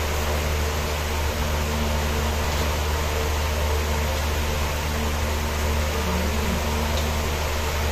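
Steady low mechanical hum with an even hiss over it, from an appliance running continuously, such as a room fan.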